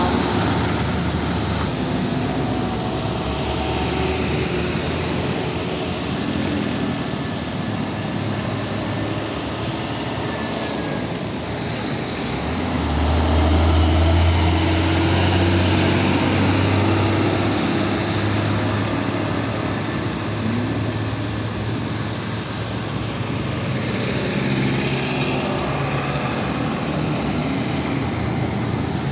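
Heavy diesel trucks driving past on a wet road, tyres hissing on the wet surface. About halfway through, a truck's engine drone swells and becomes the loudest sound, then fades.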